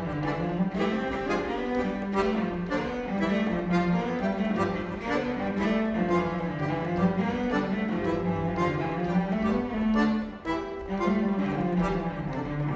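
Chamber quartet of flute, violin, accordion and cello playing, with the bowed cello prominent, carrying a moving line in the low register.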